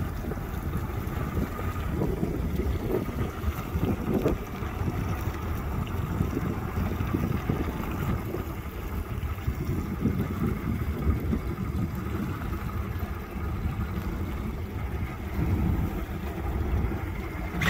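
Small boat's outboard motor running at idle under a steady low rumble of wind buffeting the microphone.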